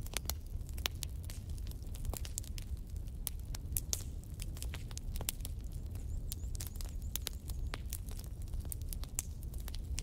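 A steady low rumble with irregular sharp crackles and clicks throughout.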